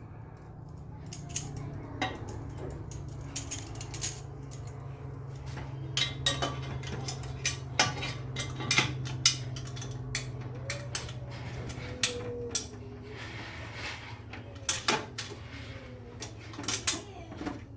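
Metal car parts and hand tools clinking and knocking at irregular intervals while turbo hardware is fitted and bolted up, over a steady low hum.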